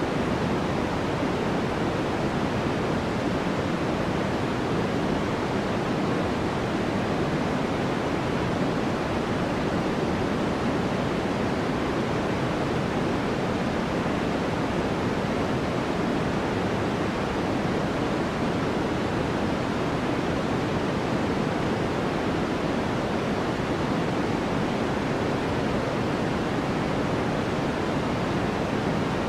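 Steady white noise: an even, unchanging hiss, fuller in the low and middle range than at the top.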